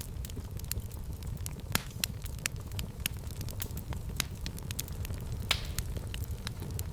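Fireplace fire crackling: frequent sharp pops and snaps over a steady low rumble of flames, with one louder pop and a brief hiss about five and a half seconds in.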